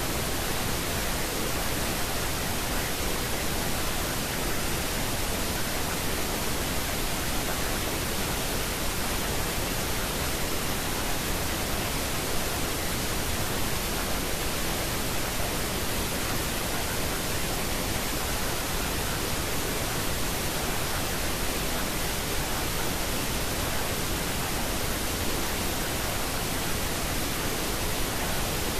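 Steady, unchanging hiss of pink noise: the masking noise bed of a subliminal affirmation recording.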